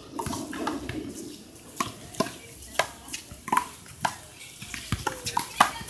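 A one-wall handball rally: sharp, irregular slaps of a palm striking the small rubber ball and the ball smacking off the wall and the court, about ten in all.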